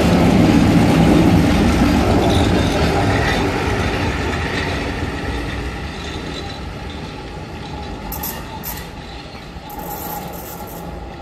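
Historic electric train passing close and pulling away, the running rumble of its wheels and the E.428 electric locomotive at the rear fading steadily as it recedes. Brief high squeals come twice near the end.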